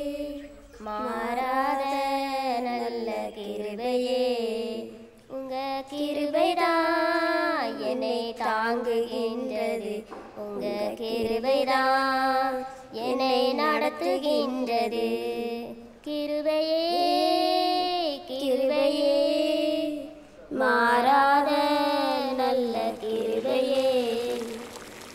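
A female voice singing a Tamil Christian devotional hymn, in phrases of a few seconds with long held notes and short breaks for breath.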